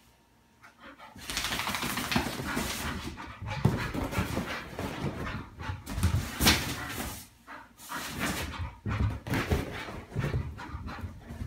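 A bull terrier playing rough, its dog noises mixed with scrambling and the rustle of a nylon pop-up play tent as it tears through it and dashes about. The sounds start about a second in, come in irregular loud spells with a few sharp knocks, and drop briefly past the middle.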